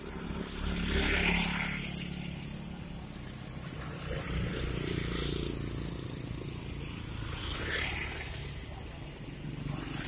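A motorcycle passing on the road, its engine swelling about a second in and then fading, over a steady low traffic rumble. A second, fainter swell comes near the end.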